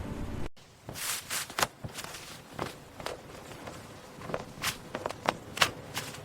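Music cuts off about half a second in, followed by a series of irregular sharp knocks and clicks, about a dozen over five seconds.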